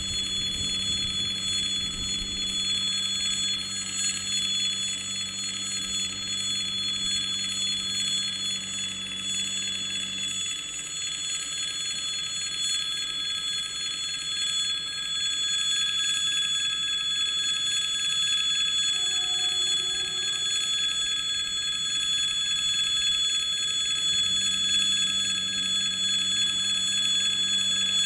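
Level-crossing warning bell ringing steadily, a continuous electric ringing. Under it a low steady hum drops out about ten seconds in and returns near the end.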